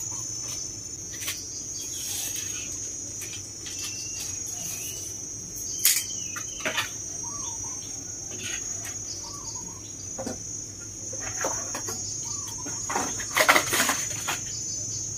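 Steady high-pitched cricket trill, with dry sticks snapping and rustling as kindling is broken and fed to a wood fire: one sharp snap about six seconds in and a cluster of snaps near the end. Small birds chirp a few times.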